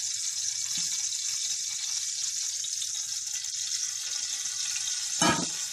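Cooking oil sizzling steadily in a steel pot as it heats, with one sharp knock about five seconds in.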